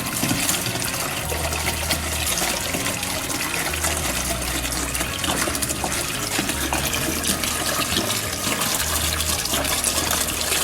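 White vinegar poured in a steady stream from a jug into a bucket, filling the bucket with descaling solution for flushing a tankless water heater.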